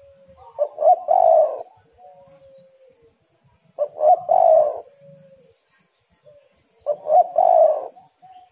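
Spotted dove cooing: three loud calls about three seconds apart, each a short first note followed by a longer second part.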